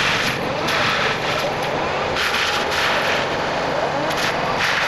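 Takeuchi machine running an FAE forestry mulcher head, its diesel engine and spinning drum making a steady loud din. The drum's grinding swells in three surges as it chews through brush and wood debris.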